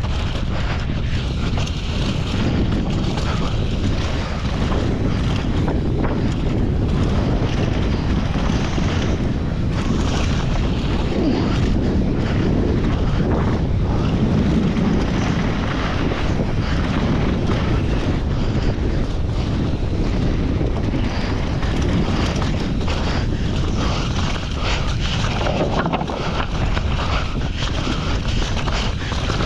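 Wind buffeting an action camera's microphone during a downhill mountain-bike run at speed, over a continuous rumble and clatter of the bike's tyres, chain and frame on a rough trail, with many short knocks from impacts.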